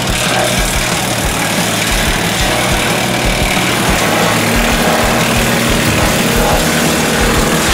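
Wood chipper running with its engine, a loud, steady mechanical drone.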